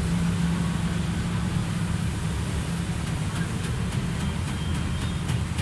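Steady low engine hum, with a few faint clicks as wires are handled.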